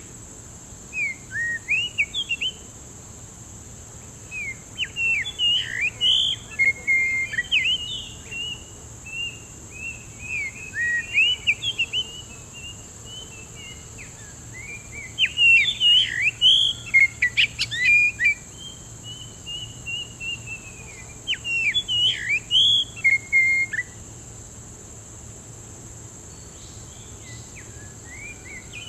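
Oriental magpie-robin singing: a long run of varied whistled phrases and quick up-and-down pitch sweeps, loudest in the middle, breaking off a few seconds before the end.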